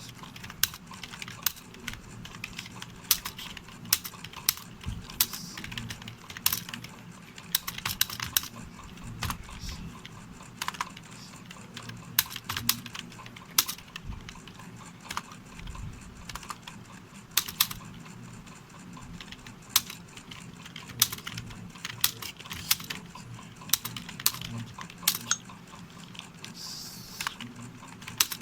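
Computer keyboard being typed on at a steady speed: a continuous run of irregular key clicks, with a few heavier strokes among them.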